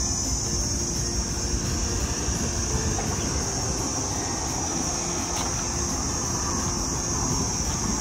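A steady, high-pitched chorus of insects, with a low, steady rumble underneath.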